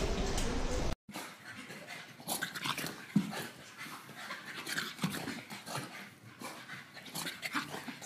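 A second of loud background noise cuts off abruptly. A dog then pants and breathes in irregular, breathy puffs.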